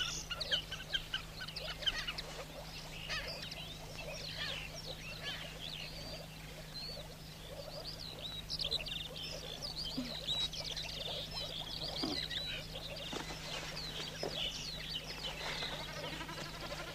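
A chorus of many short, high animal calls chirping thick and fast, over a steady low hum.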